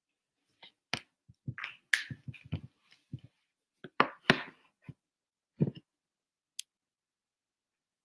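A run of short, sharp clicks and light knocks at an uneven pace, bunched into clusters around two and four seconds in, ending with a single thin click about six and a half seconds in.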